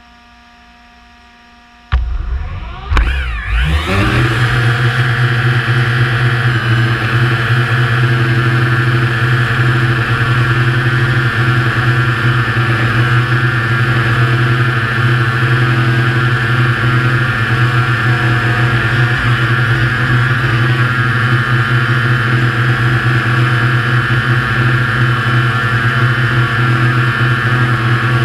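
DJI Air 2S quadcopter, a GoPro mounted on top, spinning up its four motors and propellers about two seconds in with a rising whine as it lifts off. It then hovers with a steady buzzing hum.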